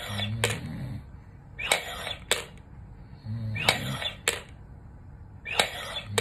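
Repeated forceful inhalations through a three-ball incentive spirometer: about three rushes of air, each half a second to a second long, roughly every two seconds, with sharp plastic clicks. A short low hum from the breather comes twice between breaths.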